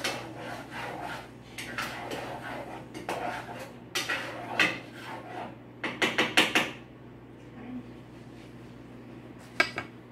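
Metal cookware and utensils clattering at a stovetop: irregular knocks and clinks, with a quick run of sharp clinks about six seconds in and two clicks near the end.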